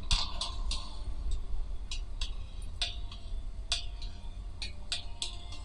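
Music played by a DFPlayer Mini MP3 module through a small loudspeaker: irregular sharp percussive ticks, some followed by a short ringing note, over a steady low hum.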